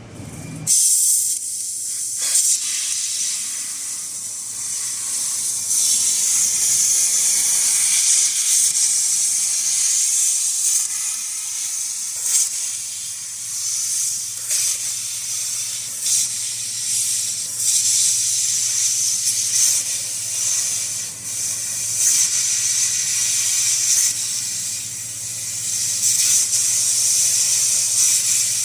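CNC fiber laser cutting machine cutting stainless steel: a steady, loud hiss of assist gas jetting from the cutting head, over a steady low hum and scattered short crackles. It starts abruptly under a second in.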